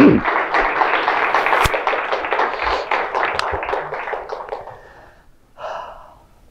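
Audience applause at the end of a talk, fading out about five seconds in. At the start there is a cough close to the microphone.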